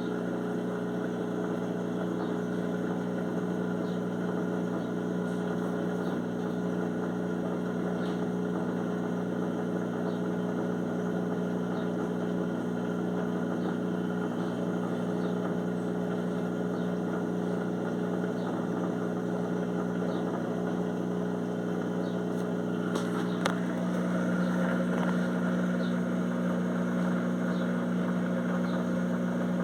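Electrolux washing machine on its spin cycle with a duvet inside: a steady motor hum with faint, regular high ticks. About three quarters of the way through there is a knock, after which the hum shifts slightly and grows a little louder. The owner finds the noise startling but takes it to be normal.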